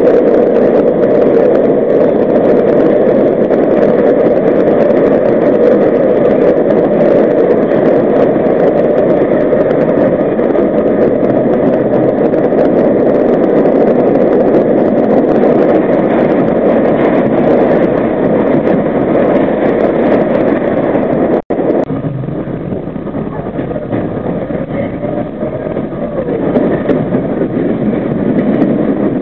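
R32 subway train running at speed through a tunnel, with a steady noise of wheels on rails and running gear. It cuts out for an instant about two-thirds of the way through and then carries on somewhat quieter.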